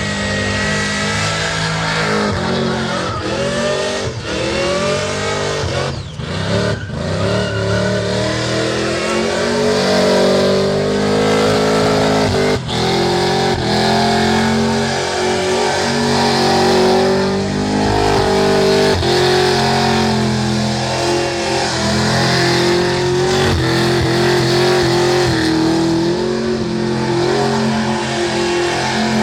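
Holden burnout car's engine revving hard and held at high revs, its pitch stepping and wavering up and down, over a steady hiss of spinning tyres.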